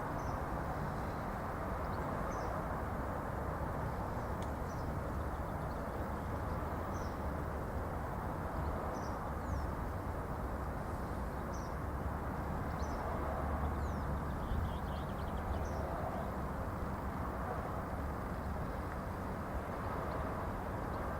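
Steady low background rumble with a small bird chirping short high notes about every two seconds.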